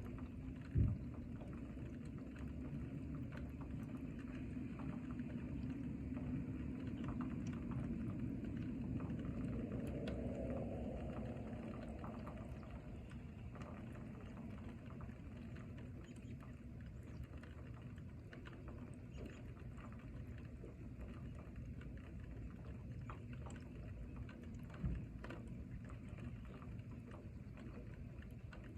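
Steady rain falling in a forest, a constant wash of noise with scattered drop patter, swelling for a few seconds in the middle. Two short dull thumps, about a second in and near the end.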